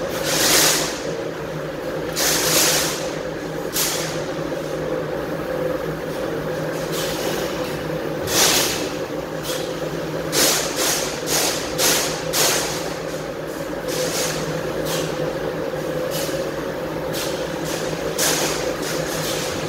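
Mitsubishi NX fiber laser cutting machine running with a steady mechanical hum, broken by short hisses of air, several in quick succession around the middle.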